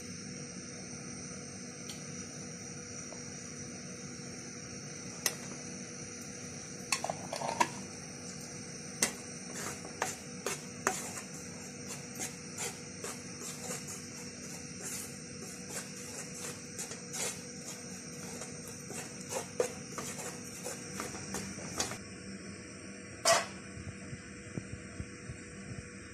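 A metal spoon and utensils clicking and scraping against a non-stick pan and a glass jar, in a run of short irregular clicks over a steady hiss. One louder knock comes near the end.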